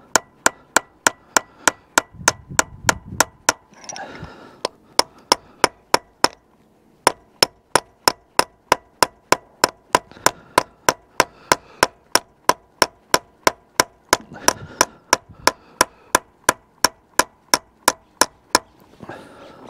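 Hammer striking a steel chisel held against the stuck hydraulic piston bushing in a Bobcat E50 excavator's X-Change coupler, about three sharp blows a second with two short breaks, driving the seized bushing round to loosen it.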